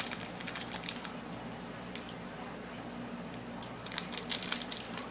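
Plastic snack wrapper crinkling in short crackly bursts as a packaged chocolate snack is opened, once at the start and again from about four seconds in, with a quieter stretch between.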